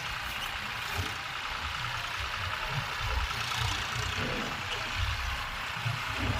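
Heavy diesel engine running steadily, with an uneven low rumble.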